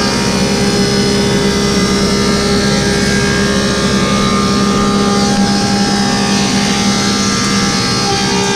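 Woodmaster 725 planer running and cutting a wooden slab as it feeds through, a loud steady drone with a ringing, many-toned whine above it.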